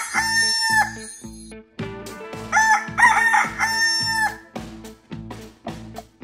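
A rooster crowing twice, the first crow ending about a second in and a second full cock-a-doodle-doo around the middle, over background music with a steady beat.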